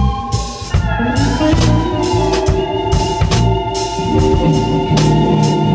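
Instrumental jam-session music: sustained organ chords over a bass line and drum kit, the chord changing about a second in.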